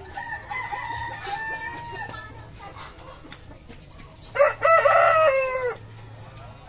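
Light Brahma rooster crowing once, about four seconds in: a loud crow lasting about a second and a half that drops in pitch at the end. Before it, in the first two seconds, a quieter drawn-out higher chicken call.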